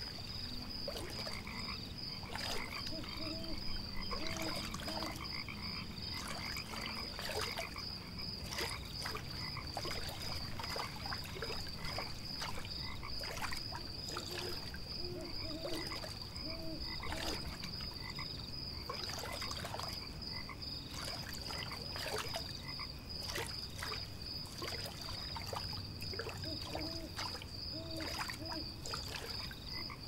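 Frogs croaking in short runs of a few calls at a time, over a steady, high, pulsing insect trill and scattered small clicks.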